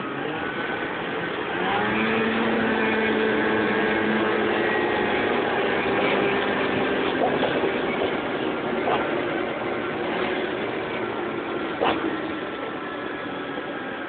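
Lynx GLX snowmobile engine running while under way across snow. Its note comes up about one and a half seconds in, then holds fairly steady. A single sharp knock comes near the end.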